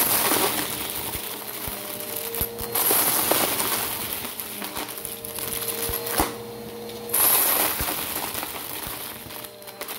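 Bissell Power Force Helix upright vacuum cleaner running as it is pushed over a pile of wooden letter tiles and plastic chips on carpet. The tiles and chips clatter and click against the vacuum head, with louder surges of crunching near the start, about three seconds in and about seven seconds in.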